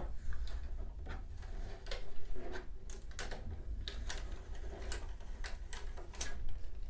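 Clear protective plastic film being picked at and peeled off a motherboard's metal I/O shield by hand: scattered small crackles and clicks.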